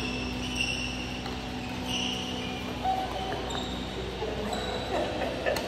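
Court shoes squeaking on a badminton court floor as players move, in several short high squeals, with a sharp racket smack on the shuttlecock near the end.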